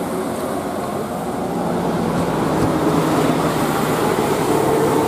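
A bus passing on the road: engine and tyre noise growing louder as it approaches, with a low steady hum and a faint steady tone coming in near the end.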